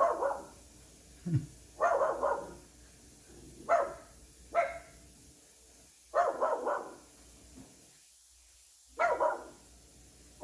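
Miniature Schnauzer barking repeatedly, single barks and quick runs of two or three, with pauses of a second or two between them.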